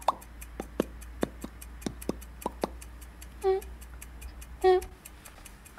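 A person imitating a heart (ECG) monitor's beep by voice: two short steady-pitched beeps about a second apart in the second half, a third starting right at the end. Beneath them runs a steady fast clock ticking, with a few louder clicks in the first half.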